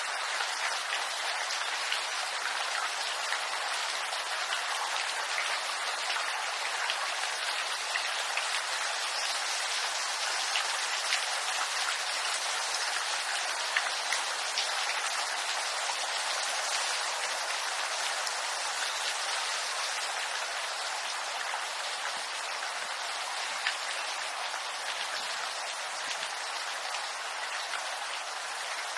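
Steady rain falling in a bamboo grove: an even hiss of drops on leaves, with scattered sharper drips now and then.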